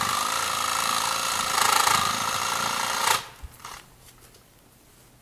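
Power tool motor running steadily with a slightly wavering whine, then cutting off abruptly about three seconds in.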